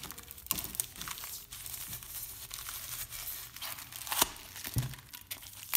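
Stainless-steel doughnut cutter pressed and twisted into a block of polystyrene foam, the foam crunching and scraping irregularly with a few sharp cracks.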